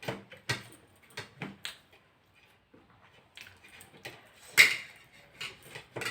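Scattered short knocks and clinks of plates and hands while people eat chapatis, with one louder clatter about four and a half seconds in.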